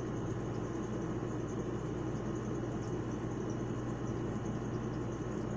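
Steady background hum and hiss of room noise, with no separate clicks or knocks.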